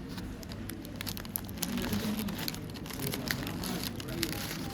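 Crinkling and rustling with scattered small clicks, over a faint murmur of background voices.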